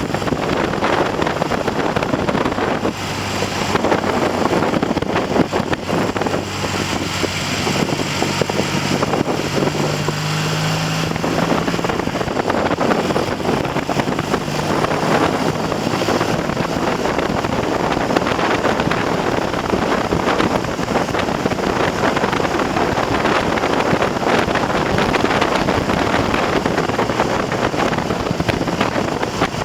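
Triumph TR6 650 cc parallel-twin motorcycle engine running under way, largely buried under heavy wind noise on the microphone. The engine note comes through more plainly for about a dozen seconds in the first half, rising a little partway through, then sinks back under the wind.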